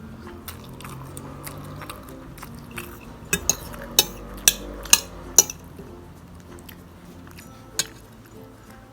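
Eating utensils clinking against a bowl of instant noodles: a quick series of sharp clinks about three seconds in, and one more near the end, with faint music underneath.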